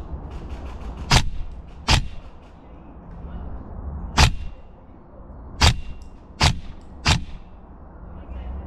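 Airsoft rifle firing six single shots, spaced unevenly over about six seconds.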